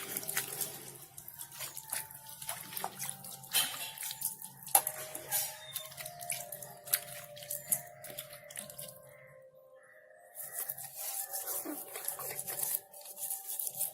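Water poured over and splashing off a mixer grinder jar as it is rinsed of soap, coming in uneven gushes with small knocks of handling, easing off briefly about nine seconds in before starting again.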